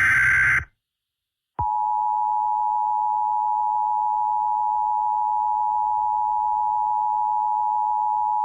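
Emergency Alert System tones. The last burst of the digital SAME header, a short harsh data squawk, ends within the first second. After about a second of silence the steady EAS attention tone starts and holds unbroken, signalling that an emergency alert message is about to be read.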